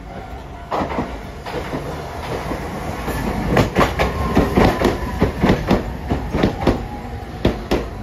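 Hiroshima Electric Railway (Hiroden) tram running into a station platform, its wheels clacking over the rail joints in a quick, uneven run of knocks over a steady rumble. The knocks are loudest from about three and a half seconds in until just before the end.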